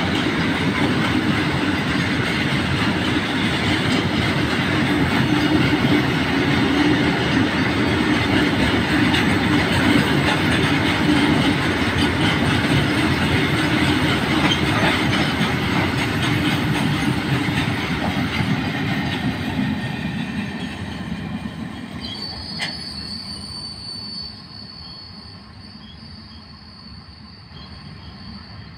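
A long freight train of tarpaulin-covered open wagons rolling past, a steady rumble and rattle of steel wheels on rail. It fades away after about twenty seconds as the last wagons pass and the train draws off. A sharp click comes a little later, and a thin, steady high whine lingers to the end.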